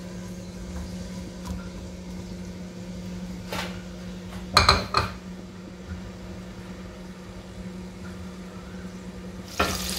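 Chopped onions cooking in hot oil in an aluminium pot, a faint sizzle under a steady low hum. Two knocks of a utensil against the pot or stove come around the middle, the second louder.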